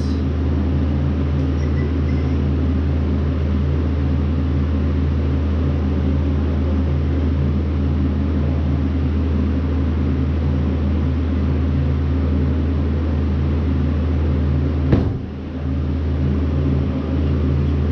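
Steady low machine hum made of a few fixed low tones, with a single sharp knock about fifteen seconds in.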